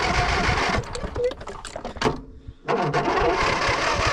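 Lawnmower engine running, then faltering and almost dying about two seconds in, and catching again half a second later.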